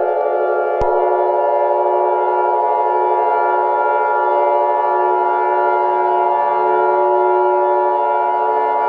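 Electronic emergency-alert tone: several steady pitches held together as one sustained chord, with no rise or fall. A higher tone joins with a click about a second in.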